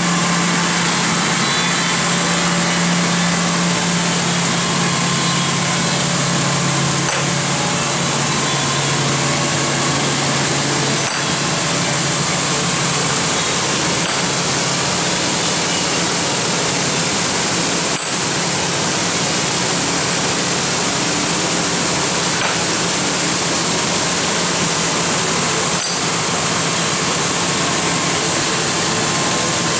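Abplanalp TFG grinder running, wet-grinding small aircraft brake pads to thickness: a steady motor hum under an even grinding and coolant hiss, with a few faint ticks every few seconds.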